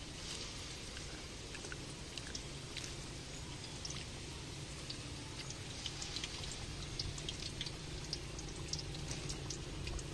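Battered bananas and sweet potatoes deep-frying in a wok of hot oil: a steady sizzle with many small irregular pops and spits, which come more often in the second half.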